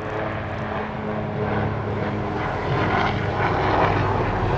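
Plane flying overhead: a steady engine drone that grows a little louder.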